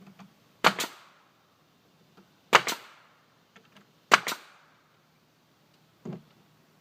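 Pneumatic nail gun firing nails to fasten a soffit panel: three sharp double cracks spaced under two seconds apart, then a fainter fourth one near the end.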